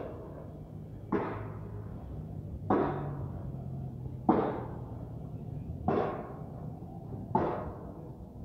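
Regular heavy knocks, about one every second and a half, each ringing briefly before fading, over a low steady hum.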